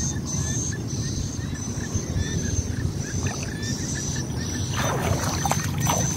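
Hands working in shallow muddy ditch water, sloshing and splashing, with more splashing near the end as he shifts his weight. Behind it runs steady high chirping, a short chirp repeating about three times a second.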